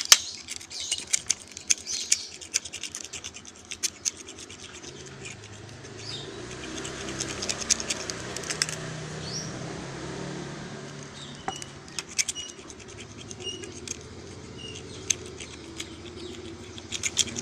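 Steel utility-knife blade scraping and clicking across a tempered glass screen protector in repeated strokes, a scratch test that the glass comes through unmarked.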